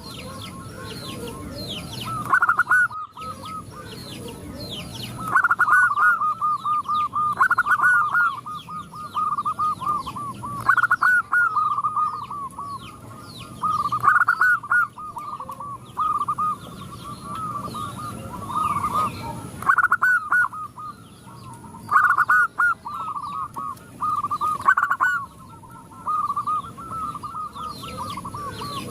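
Several zebra doves (perkutut) cooing, their rapid rolling phrases repeating every couple of seconds and overlapping one another, with fainter high chirps above.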